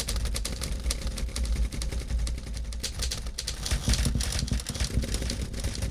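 Typewriter being typed on: keys striking in a quick, uneven run of sharp clacks, several a second.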